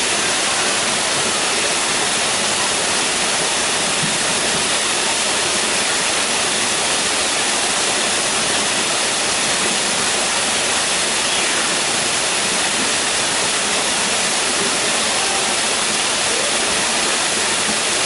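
Waterfall: water pouring down a rock face and splashing into a pool below, a steady, loud rushing.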